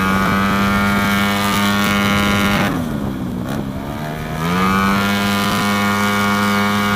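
Tuned racing Vespa scooter engine of about 200 cc, held at high revs under way. A little before the middle the revs drop briefly, then climb back and hold steady.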